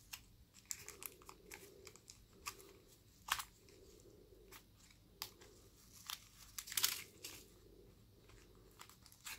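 Faint rustling and crinkling of plastic-wrapped packaging and a small carrying pouch handled by hand, with scattered small clicks; the strongest rustles come a little after three seconds and around seven seconds.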